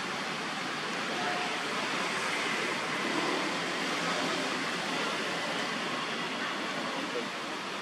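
Steady rush of a muddy, rain-swollen stream, with a few faint short tones over it.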